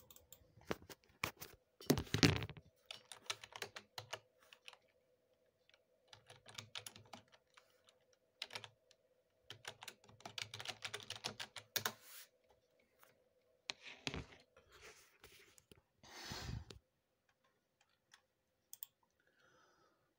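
Typing on a computer keyboard in several short bursts of keystrokes, with a faint steady hum underneath.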